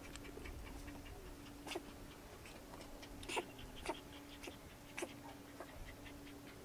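Golden retriever puppy suckling from a small milk bottle: a few faint wet smacking clicks, spread out, over a steady faint hum.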